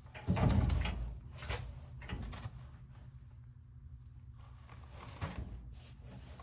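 Handling noises during a motorcycle brake-fluid drain: a loud bump and rustle about half a second in, then a few light knocks and clicks, over a steady low hum.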